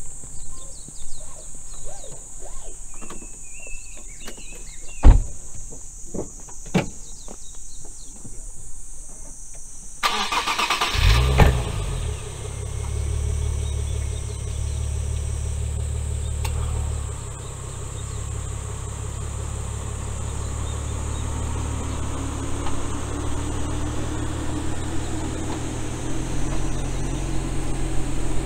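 A car door shuts with a sharp thump about five seconds in. About ten seconds in, a Nissan Z34 370Z NISMO's 3.7-litre V6 is cranked and starts with a brief rev. It runs at a raised idle, then settles to a lower steady idle a few seconds later.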